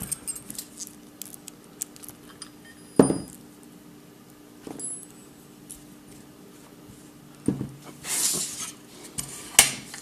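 Small metal padlock parts and an Allen key being handled and set down, making scattered light clicks and clinks. There are a few sharper knocks, one about three seconds in and one near the end, and a brief rustle just after eight seconds.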